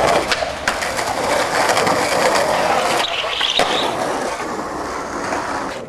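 Skateboard wheels rolling over rough street pavement: a steady gritty rolling noise with a few small clicks and ticks from the board.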